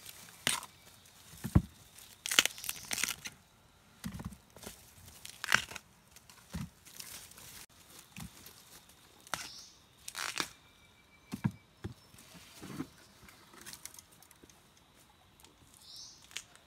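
Dry bamboo leaves and twigs crackling and rustling underfoot and against the body as someone moves through a bamboo thicket, in irregular bursts with quiet gaps between.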